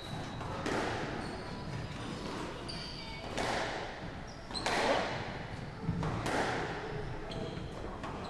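Squash rally: the ball strikes sharply off rackets and the court walls about six times, each hit echoing in the court, with short high squeaks from shoes on the wooden floor between shots.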